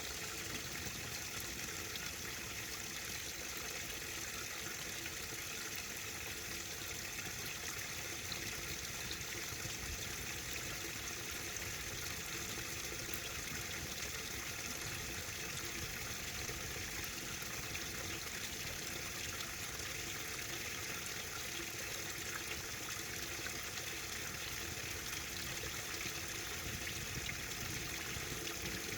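Water flowing softly and steadily, an even trickling rush with no breaks or changes.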